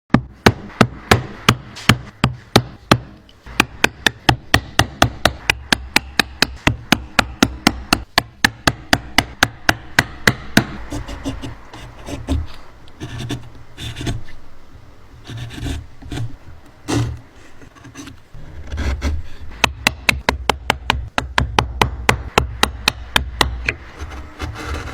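Rapid, regular knocks on wood, about three or four a second, for the first ten seconds or so, then scraping and rubbing of wood with scattered knocks.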